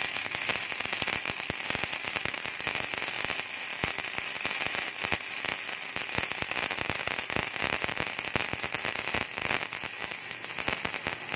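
Gasless flux-core MIG welding arc crackling steadily, with dense sharp spatter pops, from a mini MIG/stick welder set for 3 mm steel.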